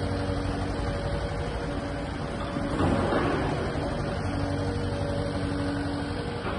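Kubota KX080-4 midi excavator's diesel engine running, with a steady hydraulic whine that drops out and returns while the upper structure slews round. A brief louder rush of noise comes about three seconds in.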